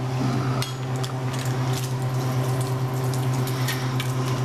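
A loud steady electrical hum with a buzzy edge runs throughout, with scattered light clicks and liquid seasoning being squeezed from a bottle onto raw sliced beef in a stainless steel bowl.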